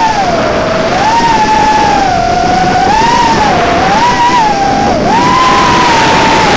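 Small FPV racing quadcopter's brushless motors and propellers whining, the pitch rising and falling as the throttle changes, with a brief sharp dip about five seconds in.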